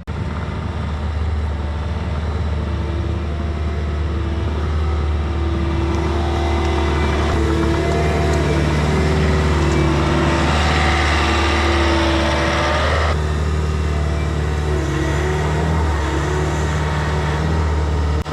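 Bobcat T66 compact track loader's diesel engine running under load as the machine drives back and forth over rutted ground, its engine note shifting with the work. A louder, noisier stretch in the middle ends abruptly about two-thirds of the way through.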